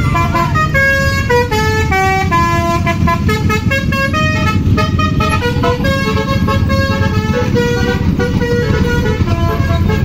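Basuri-type telolet musical horn on a tour bus playing a tune of held notes one after another, stepping down in pitch over the first few seconds. The bus's engine runs underneath.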